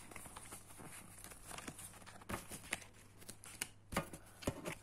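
Faint rustling and scattered soft clicks of Panini football sticker cards being handled and shuffled, with a few sharper ticks in the second half.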